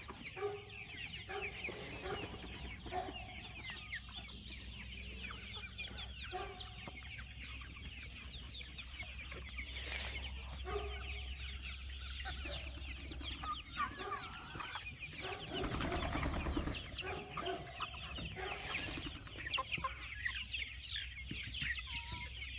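A flock of free-ranging chickens clucking on and off, over a constant scatter of high, short peeps. A brief rustle about two-thirds of the way in.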